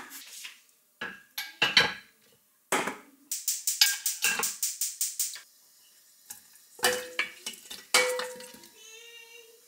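Kitchen clatter: metal pots, pans and utensils knocking and clinking, with a quick rattling run of clicks for about two seconds in the middle.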